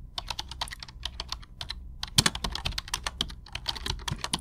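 Ballpoint pen writing on paper: a quick, irregular run of sharp scratching strokes and taps.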